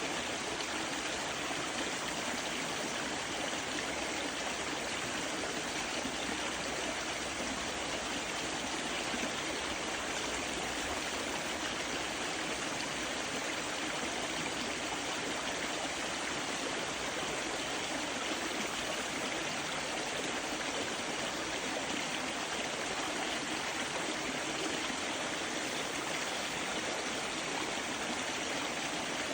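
Water of a mountain stream rushing and gurgling over rocks, a steady, unbroken flow.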